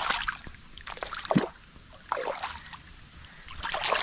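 Water splashing and sloshing in several short, irregular bursts.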